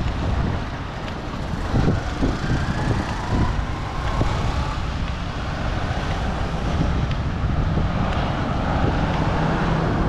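Street traffic: a steady mix of passing vehicles, with wind buffeting the microphone.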